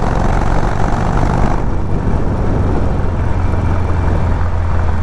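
Harley-Davidson Sportster Forty-Eight's 1200 cc air-cooled V-twin running steadily under way. A rushing noise over the engine drops off about a second and a half in.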